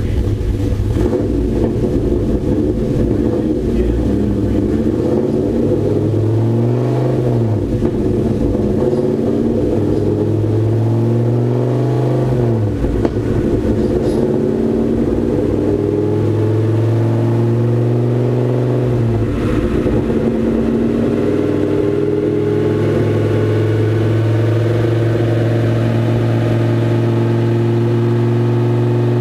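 Dodge Ram SRT-10's V10 engine running under load on a chassis dyno, its rear wheels spinning on the rollers. The engine pitch climbs and drops back three times, then climbs slowly and steadily through the second half.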